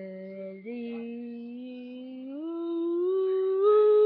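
A child's voice singing long held notes that step upward in pitch, four notes in a slow rising run, getting louder near the end.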